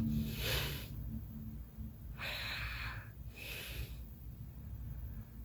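A man snoring: three noisy breaths in and out in the first four seconds, then a fainter one near the end.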